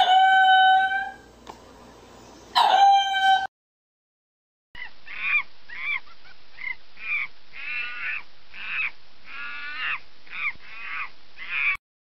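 Animal calls from two different clips. First a pitched call held for about a second, then a second, shorter one. After a brief silence, a run of about a dozen short, repeated calls follows at roughly two a second, stopping just before the end.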